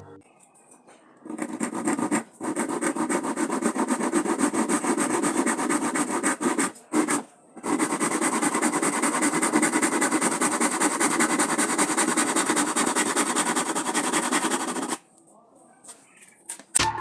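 Electric woodworking power tool running under load with a rapid rattling pulse, stopping briefly twice and cutting off near the end.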